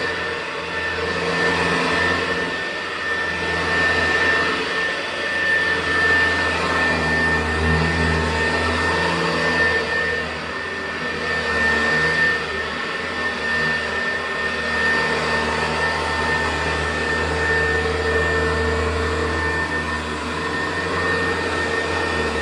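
Hoover U4007 commercial upright vacuum with a 4-row brushroll running on carpet, a steady motor hum with a deep bass tone. Its loudness swells and dips every few seconds as it works over the carpet.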